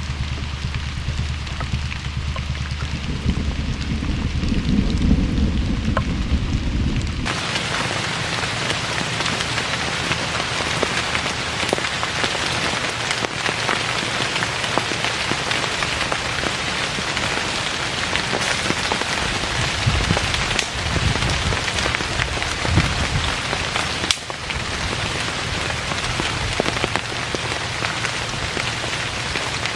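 Heavy rain falling. For the first seven seconds it sounds muffled and deep, then it abruptly turns to a full, bright, steady hiss.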